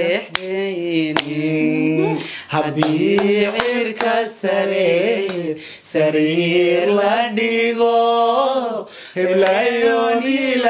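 Voices singing a Somali song unaccompanied, drawing out long notes with a wavering pitch, broken by short pauses for breath. Sharp handclaps land here and there through the singing.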